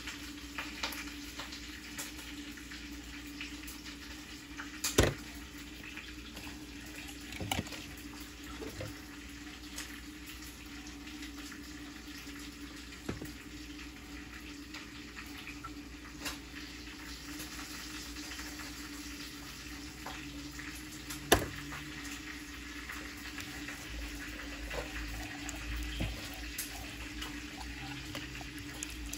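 Light clicks and knocks of a pepper shaker and of handling a fish in a ceramic bowl, with two sharper knocks about five seconds in and again about twenty-one seconds in, over a steady kitchen hiss with a low hum.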